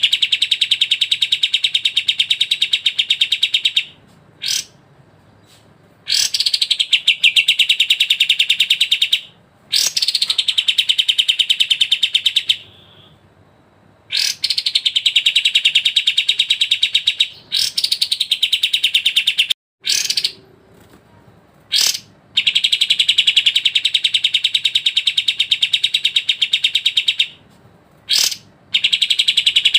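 Songbird giving long, very fast rattling trills, each opening with a falling note, repeated about seven times with short pauses and a few brief single notes in between.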